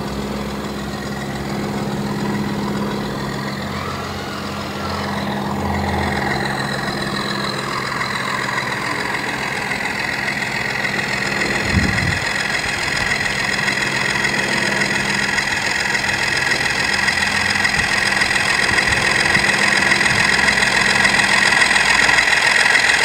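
Sound-fitted (DCC) model British diesel locomotive running, its onboard speaker playing a steady diesel engine sound that grows louder as the train approaches, with wheel and rail noise rising alongside. There is one brief knock about halfway through.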